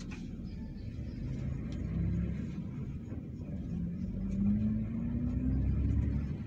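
Low rumble inside a vehicle as it pulls away from a stop in traffic. An engine or motor drone rises slowly in pitch as it gathers speed.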